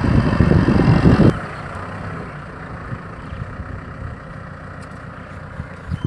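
Kubota M6040 SU tractor's four-cylinder diesel engine running while pulling a disc plough through a field. It is loud and close for a little over a second, then drops abruptly to a quieter, steady running.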